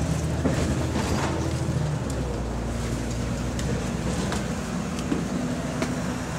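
A VDL DB300 / Wright Eclipse Gemini double-decker bus's engine and road noise heard from inside while it is moving, a steady hum whose note changes about two seconds in. Scattered short knocks and rattles come through over it.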